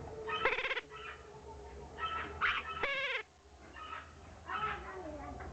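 Birds calling: two loud, harsh quavering calls, one about half a second in and one near three seconds, with softer chattering calls in between and after.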